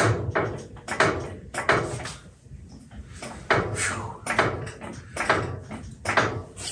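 An uneven run of sharp clunks and knocks, each with a brief ring after it, bunched closely at times and spread out at others.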